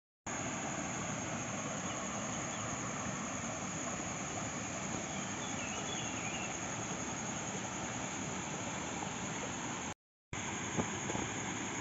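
Steady outdoor background noise, an even rushing hiss with a constant high-pitched edge, with a few faint chirps about five seconds in. It cuts out for a moment near ten seconds, and a few light clicks follow.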